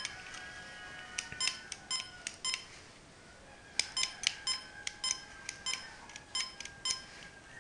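Short electronic key-press beeps from a homemade microcontroller door lock's keypad as the master code is keyed in. A quick run of about six beeps comes first, then a pause of about a second, then a longer run of about a dozen.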